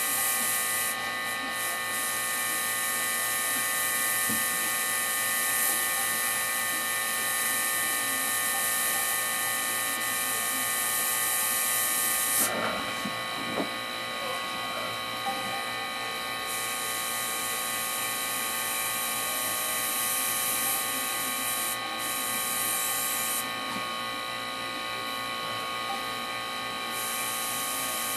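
Airbrush compressor running with a steady mechanical whir, under the hiss of air from the airbrush as it sprays. The hiss stops twice for a few seconds when the trigger is let go.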